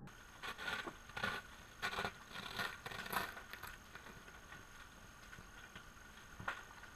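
Scattered scraping and crackling noises picked up through an underwater camera housing: a quick cluster of about seven in the first three and a half seconds, then a single one near the end, over a faint steady high whine.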